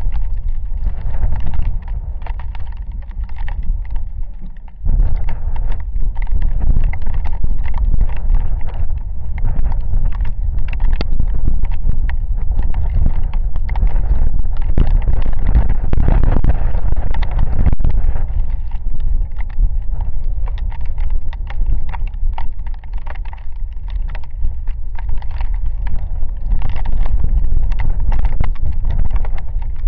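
A windy rainstorm: gusts buffet the microphone with a heavy low rumble, while many close raindrops patter and tap. The wind eases slightly, then gusts back hard about five seconds in.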